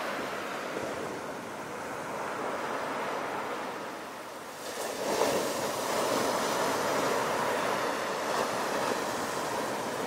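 Ocean surf breaking on a pebble beach: a steady wash that eases off for a moment, then a large wave crashes just before halfway and the louder rush of foam carries on.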